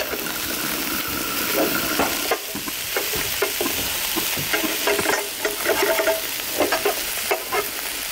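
Eggs frying and sizzling in a non-stick frying pan, with a metal spatula scraping and tapping against the pan in short irregular strokes as the omelette is pressed and turned.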